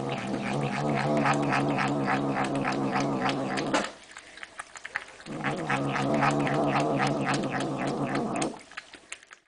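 Domestic cat making a long, steady, low growling hum while it eats from a bowl, over quick clicking eating sounds of about five a second. The hum comes in two long stretches with a pause of a second or so between, and the clicking carries on through the pause.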